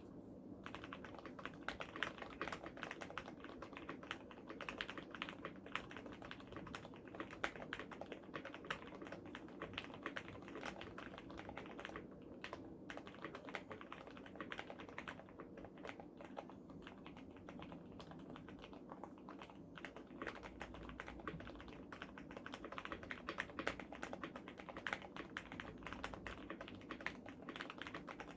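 Steady fast typing on a KBD67 Lite R3 mechanical keyboard with Cherry MX Hyperglide black linear switches: a dense run of key clacks, with a brief pause about twelve seconds in.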